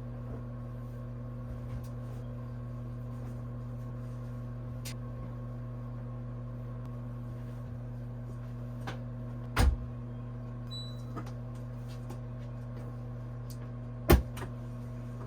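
Steady electric hum of a kitchen appliance running while food is reheated, with a few sharp knocks like cupboard doors or utensils: one around two-thirds through and the loudest near the end.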